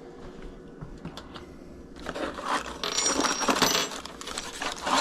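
Small hard metal objects clinking and rattling as they are handled, starting about two seconds in, with a thin high ringing among the clatter.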